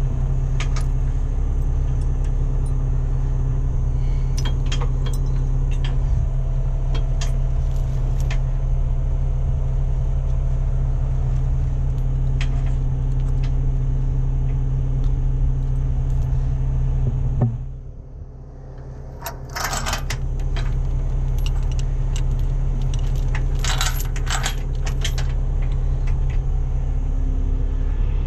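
Steel tow safety chains and grab hooks clinking and rattling as they are handled, with a dense burst of chain rattling twice in the last third, over a heavy truck's engine idling steadily. The engine drone drops away for about two seconds a little past the middle.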